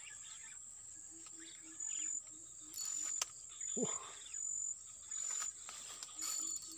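Insects chirping in short high-pitched pulses about once a second. A faint low pulsing call, about four notes a second, comes and goes, and a short sound falling in pitch comes about four seconds in.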